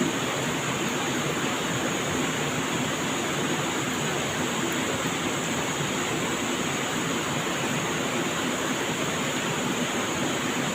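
Steady rushing of flowing water, as of a stream or river current, even and unbroken, with a steady high-pitched hiss over it.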